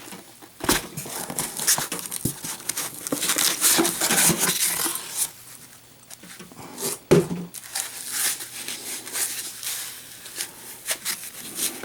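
Packing padding crinkling and rustling as it is handled and pulled out of a box, with scattered clicks and one sharp knock about seven seconds in.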